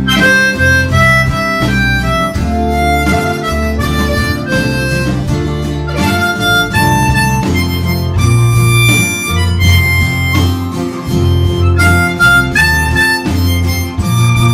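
Diatonic harmonica in C playing a simple melody in clean single notes over a backing track with guitar and bass.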